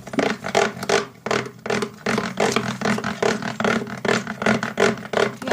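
Spoon scraping rapidly round a container while stirring slime as it thickens, about four or five scraping strokes a second over a steady low hum.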